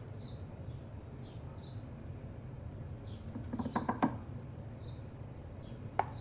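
Spatula knocking against the glass baking dish and mixing bowl while dollops of cream-cheese filling are scooped onto the crumb base: a quick run of taps about three and a half seconds in, and a single ringing tap near the end. Faint high chirps repeat in the background.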